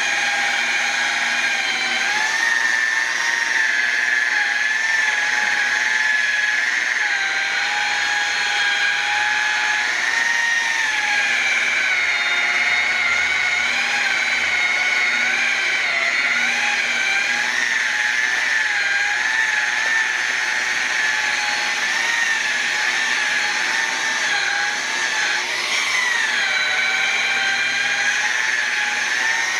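Electric rotary polisher with a buffing pad, running at about 1800 RPM while machine-polishing a plastic headlight lens: a steady motor whine that wavers slightly in pitch throughout.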